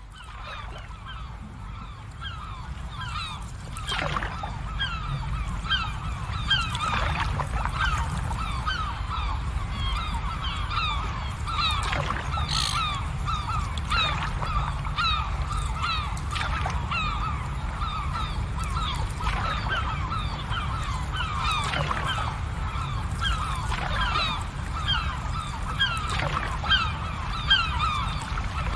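A large flock of birds calling nonstop, many short honking calls overlapping one another, over a steady low rumble.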